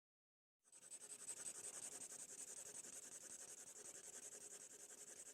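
A drawing tool scratching on paper in rapid, even back-and-forth strokes, as in shading or colouring. It is faint and starts just under a second in, after complete silence.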